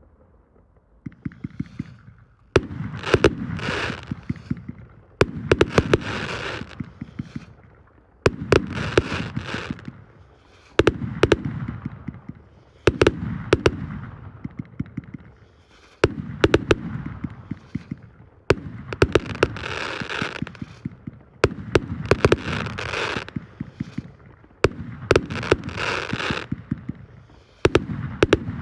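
Ground-launched fireworks cake firing volley after volley, starting about a second in: each volley is a cluster of sharp launch bangs followed by crackling from the bursting stars, repeating about every three seconds.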